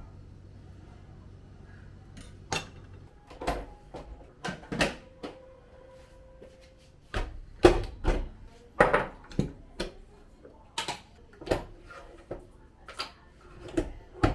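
Kitchenware being handled: a run of sharp, irregular knocks and clinks starting about two and a half seconds in. A low steady hum underneath stops about three seconds in.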